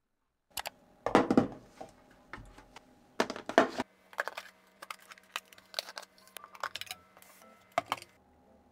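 Clicking and clattering of kitchen items being handled: two longer, louder clatters about one and three seconds in, then a run of light clicks and one sharper click near the end.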